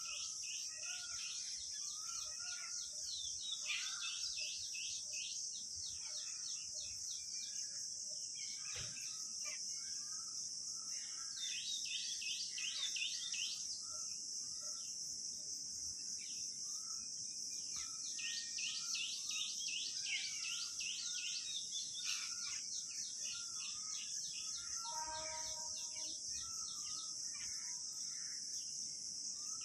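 Steady high-pitched insect drone, with birds chirping in quick repeated runs over it and a short lower bird call near the end.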